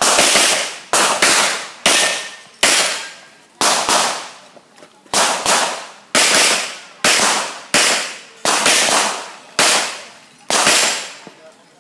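Pistol shots in an irregular string, about a dozen, mostly one to two a second with a short pause near the middle; each sharp crack is followed by a long echoing decay.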